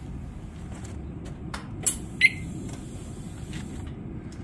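A few sharp clicks and one short, falling electronic chirp about two seconds in, over a low steady rumble.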